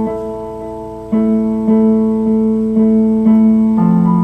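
Electric keyboard playing held chords, struck anew about every half second to second, with a deeper chord coming in near the end.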